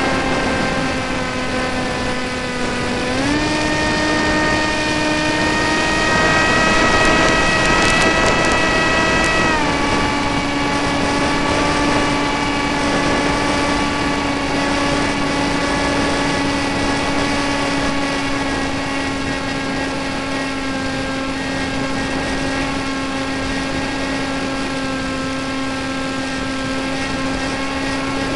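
RC model airplane's motor and propeller, heard from a camera mounted on the plane, running as a steady pitched drone over rushing air noise. The pitch steps up about three seconds in as the throttle is advanced, then eases back slightly about ten seconds in and holds steady.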